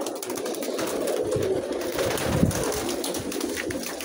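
Domestic pigeons cooing in a loft: several low coos overlapping, with scattered light clicks and rustles.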